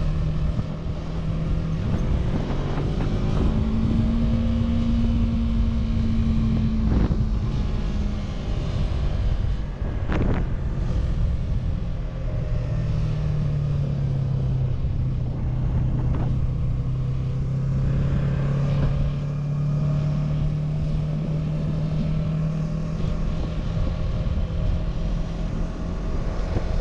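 Yamaha YZF-R3's 321cc liquid-cooled parallel-twin engine running while the bike is ridden, holding a steady note that steps up and down in pitch a few times with throttle changes, over a steady rush of wind.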